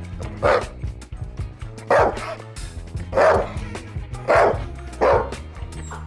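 Doberman barking, five loud barks spaced roughly a second apart, over background music.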